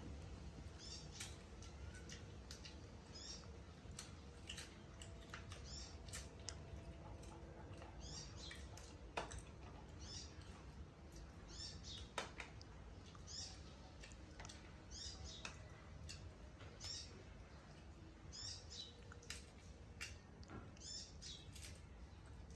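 Small clicks and snaps of fresh lotus seeds being split and peeled by hand, two of them sharper about 9 and 12 seconds in. Over them a short high chirp repeats every second or two.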